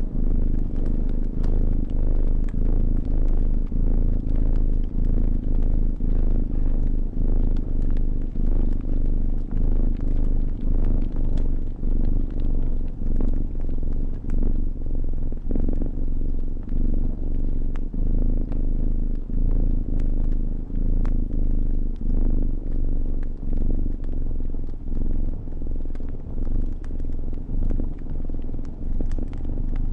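A cat purring steadily, low and dense, swelling and fading a little more than once a second. A fire crackles over it in scattered sharp pops.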